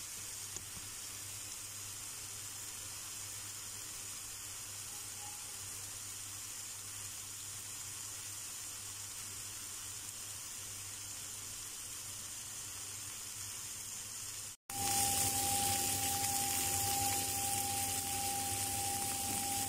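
Marinated chicken leg quarters sizzling in a frying pan as the marinade's liquid cooks off, a steady hiss. After a cut about two-thirds of the way in, the sizzling is louder, with the pan nearly dry, and a thin steady tone sounds with it.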